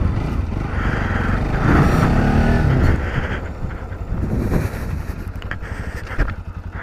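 Motorcycle riding along a road, engine and road noise running steadily; it quietens from about halfway as the bike slows.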